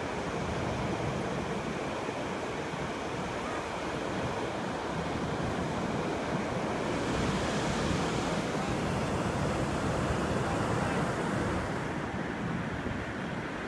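Steady rush of ocean surf with wind. It swells to a louder, hissier wash about seven seconds in and eases off about five seconds later.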